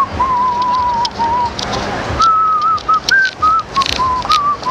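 A person whistling a tune: clear single notes that rise, fall and waver in short phrases, over street noise with scattered short clicks.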